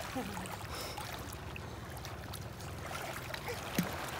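Shallow sea water washing and lapping steadily over a pebble shore, with one brief louder sound near the end.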